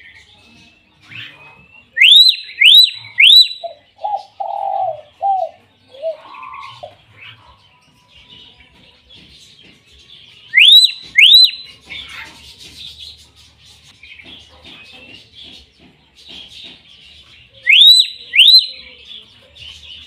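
Hill myna giving loud, sharply rising whistles in quick groups: three about two seconds in, two about ten seconds in and two more near the end. Softer, lower notes and quiet chatter fill the gaps between.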